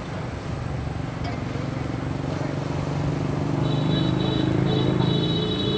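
An engine running with a steady hum that grows louder over the last few seconds, with a faint high pulsed whine over the final two seconds.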